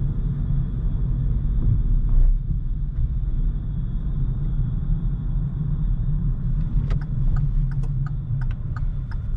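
Low, steady engine and road rumble inside a moving car's cabin. About seven seconds in, the turn indicator starts clicking at an even pace of two to three clicks a second.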